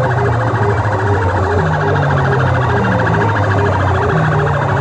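Very loud, siren-like electronic music blasting from banks of horn loudspeakers on a sound-system rig. A fast repeating pattern rides over a low tone that shifts pitch every couple of seconds, with no let-up.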